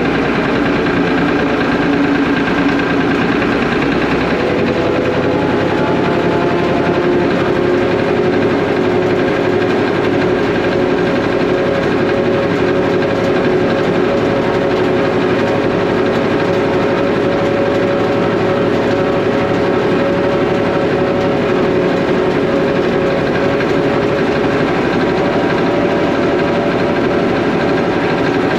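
Zetor 3011 tractor's three-cylinder diesel engine running steadily under way, heard from inside the cab; its note steps up about four seconds in and then holds steady.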